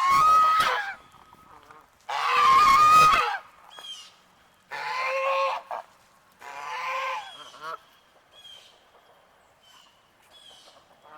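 A goose honking four times, long harsh calls of about a second each, spaced a second or so apart, then falling silent. The goose is agitated, honking at the person it has just nipped.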